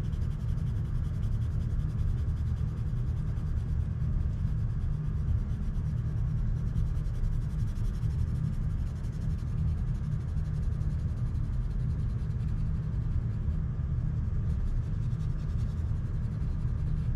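Colored pencil shading back and forth on paper, a faint scratching, over a steady low rumble.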